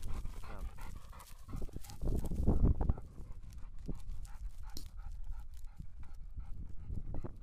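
A German pointer panting after retrieving a quail, with dry stubble rustling and handling knocks that are loudest about two to three seconds in.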